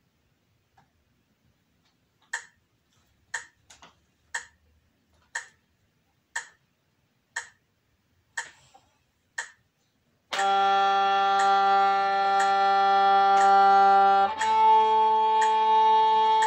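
A metronome ticks about once a second, eight times. About ten seconds in a violin enters, bowing the opening long notes of a G major scale, each held for about four ticks, while the metronome keeps ticking underneath.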